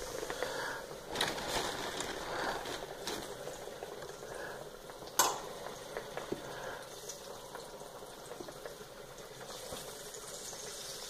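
Steady sizzle of turkey tenders frying in hot canola and olive oil, with a few sharp clicks, the loudest about five seconds in.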